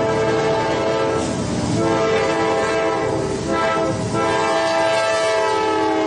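SNCF TGV Sud-Est train horn sounding loud and continuously, its chord of steady tones switching pitch several times, about once a second, over an underlying rumble.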